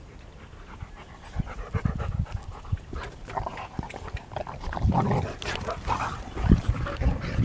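Boxer dogs panting and scuffling as they play-wrestle on grass, starting quiet and getting busier from about three seconds in, with a few low thuds.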